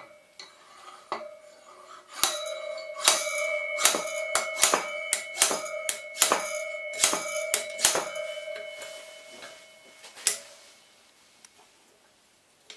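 Hammer blows on metal during front-wheel-bearing work on a motorcycle: about fifteen sharp, uneven strikes, one to two a second, each leaving a clear metallic ring. After a short pause there is a last blow, and the ringing then fades away.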